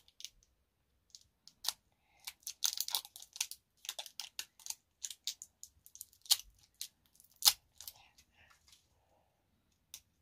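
Thin plastic wrapping on a small toy capsule crinkling and tearing under a child's fingers as it is peeled open: clusters of quick crackles with a couple of sharper clicks in the middle.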